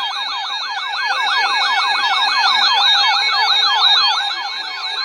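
Several electronic siren tones yelping together: fast, overlapping up-and-down sweeps that repeat several times a second over steady alarm tones.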